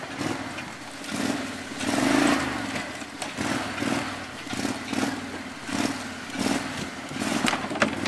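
Max six-wheel amphibious ATV's engine running off-road, its note swelling and falling again and again as the throttle is worked, loudest about two seconds in, with scattered knocks.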